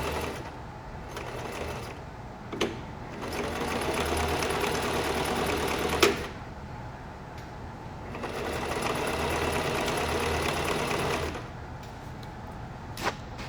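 Singer sewing machine stitching in three runs of a few seconds each, with quieter pauses between and a sharp click about two and a half seconds in, another about six seconds in, and two near the end. The stop-and-go running fits backstitching back and forth to lock the stitch at the end of a seam.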